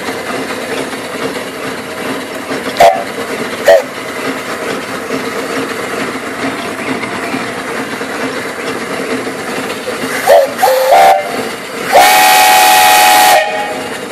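Steam donkey's brass boiler whistle blown by its pull cord: two short toots about a second apart, later a few short blasts that rise in pitch as the valve opens, then one long steady blast of about a second and a half, the loudest sound. A steady steam hiss runs underneath.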